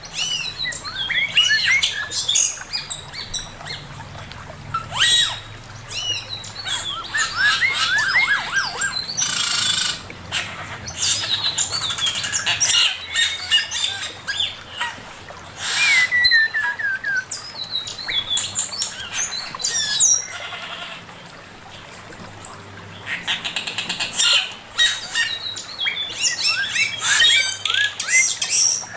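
Male poksay mandarin, a caged laughingthrush, singing a loud, rapid, varied song of whistled slurs, chirps and trills, with a long falling whistle about halfway through and a short lull in the last third.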